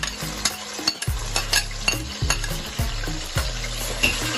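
Onions sizzling in hot palm oil as they are stirred, with sharp clicks of the stirring utensil against the pot about every half second.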